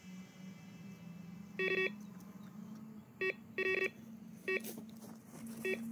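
Electronic carp bite alarm beeping in about five short, irregular bursts of quick two-tone beeps: a fish has taken the bait and is pulling line off on a run.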